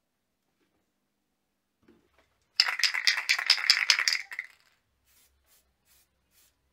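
Aerosol spray can being shaken hard, its mixing ball rattling rapidly for under two seconds; a few faint ticks follow.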